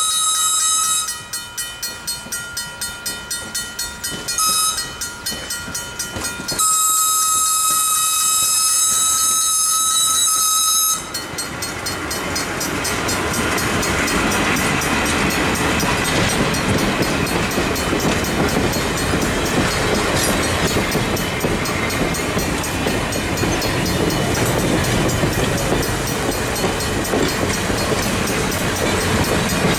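Steam locomotive whistle, a chime of several tones, blowing for a grade crossing: the end of a long blast, a short blast about four seconds in, then a long blast until about eleven seconds in, with a quick rhythmic pulsing between the blasts. Then the ALCo 2-8-2 steam locomotive and its passenger coaches roll past over the crossing, a steady loud rumble and clatter of wheels on rail.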